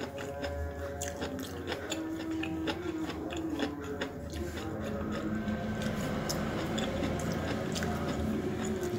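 A person eating by hand and chewing food: many small wet clicks and mouth smacks, over a low hum and faint steady tones.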